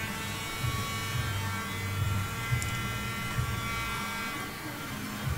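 Electric heat gun set to 350 °C, running with a steady fan whine and rush of air while it heat-shrinks small ridges in window tint film on the glass.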